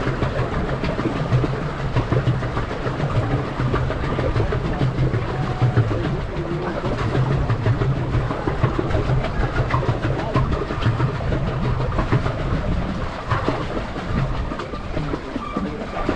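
Pedal boat under way: water churning and splashing at the hull, with a steady clattering rattle from the boat's pedal-driven mechanism.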